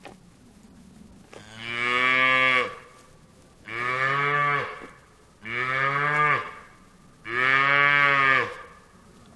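A cow mooing four times in a row, each moo a loud drawn-out call of about a second with short pauses between.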